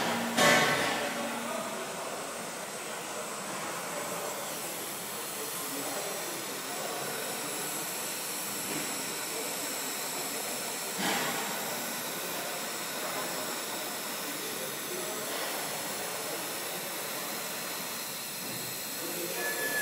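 TIG welding arc on a V2A stainless steel pipe elbow, run at about 60 amps, giving a steady hiss. There is a sharp crackle about half a second in and another about 11 seconds in.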